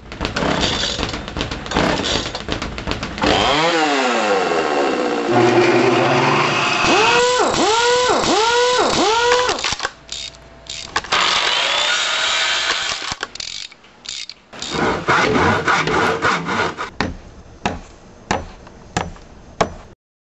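A power tool running, winding down in a falling whine, then revved in four short pulses, with scraping and knocking in between.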